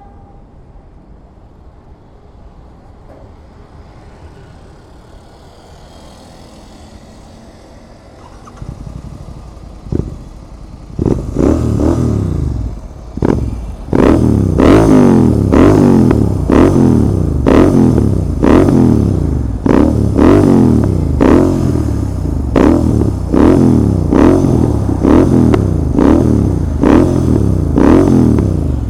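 Royal Enfield Continental GT 650's 648cc parallel-twin engine through a Red Rooster Performance aftermarket exhaust. After about ten seconds of low background sound it comes in loud and is revved again and again, about once a second, each rev rising in pitch and then dropping back.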